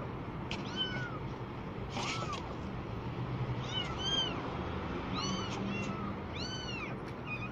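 Very young kittens mewing: short, high cries that rise and fall in pitch, about a dozen in a few seconds, some overlapping.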